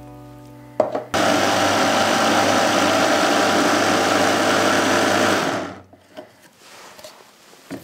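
A click, then a food processor motor starts about a second in, running steadily for about four and a half seconds as its blade chops wild garlic leaves with salt and oil into a paste, then winds down.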